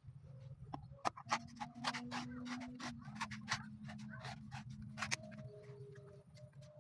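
A blade striking and cutting into a coconut as it is peeled: a quick, irregular run of sharp chops and knocks over a steady low hum.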